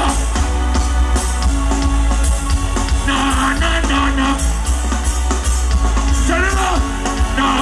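Live reggae band music, loud and steady, with a heavy bass line and drums. A singer's voice comes in over it twice, briefly.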